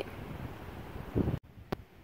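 Wind buffeting a phone's microphone, with a louder low gust or bump just over a second in. It then cuts off abruptly to a much quieter background with a faint click.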